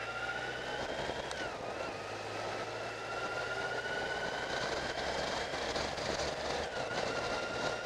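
Motorcycle riding along a street, heard from the bike with wind and road noise. A thin engine whine climbs slowly, dips briefly about one and a half seconds in and again near the end, and climbs again each time.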